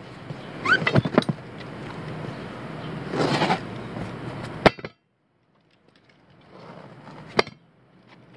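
A tire on a steel wheel being handled on asphalt: scuffs and clinks as it is lifted and turned, and sharp knocks as it is set down, the loudest just before the middle and another near the end.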